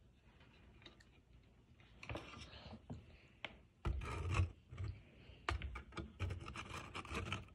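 Irregular handling noise: rubbing and scraping with sharp clicks and dull bumps, starting about two seconds in and loudest around four seconds in.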